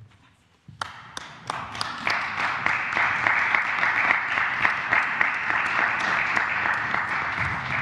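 Audience applauding: a few scattered claps about a second in, swelling into steady applause by about two seconds.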